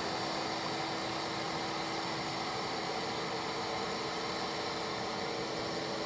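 Shop vacuum motor running steadily, powering a bee vacuum that draws honey bees through a hose: an even rush of air with a constant hum.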